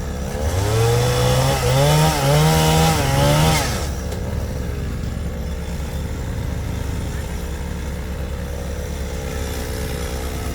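An engine runs steadily, then revs up about half a second in, its pitch rising and wavering under load for about three seconds before dropping back to a steady running note.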